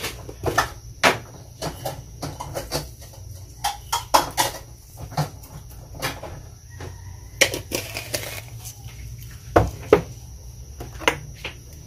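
Irregular clicks and knocks from a glass salt jar and its lid being handled while salt is added to a stockpot of water, with a sharper knock near the end, over a steady low hum.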